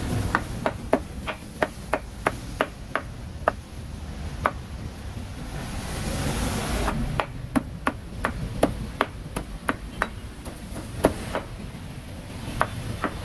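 A cleaver chopping grilled meat on a chopping board in quick, sharp strokes, about three a second. There is a short break a few seconds in, then faster chopping.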